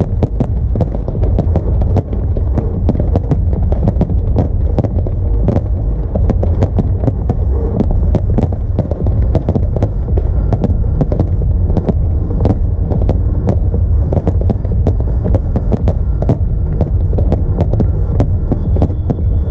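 Fireworks display at full barrage: many aerial shells bursting in rapid, overlapping bangs over a steady low rumble.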